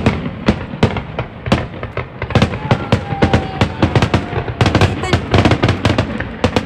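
Fireworks finale: a fast barrage of aerial shell bursts and crackling reports, several sharp bangs a second with no let-up.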